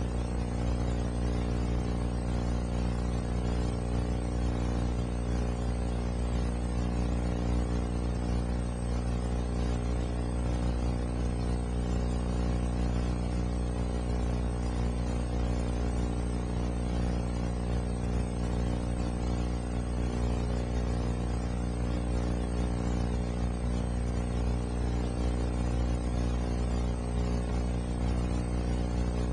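A steady low hum with many evenly spaced overtones, holding level without change.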